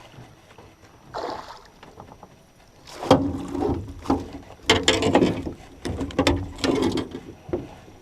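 Water splashing around a small fishing boat in a run of irregular, loud bursts, starting about three seconds in.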